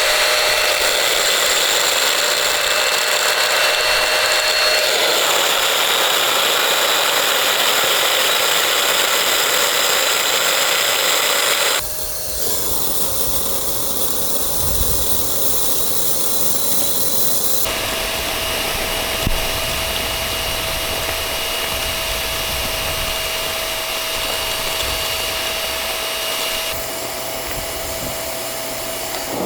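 Shark Navigator upright vacuum cleaner's motor running steadily with a high whine over a rushing airflow. The tone and loudness change abruptly about twelve seconds in and again about six seconds later.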